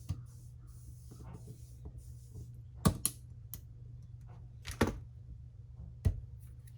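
Several sharp metallic clicks and snaps as a snap ring is worked into the head of a GearWrench 3/8-drive ratchet with snap-ring pliers, the loudest about three seconds in and near five seconds, over a steady low hum.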